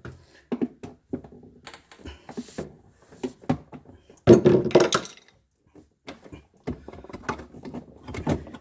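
Hard plastic refrigerator parts knocking, clicking and scraping while a piece is pushed and worked into place, in short irregular knocks, with a louder run of knocking lasting about a second near the middle.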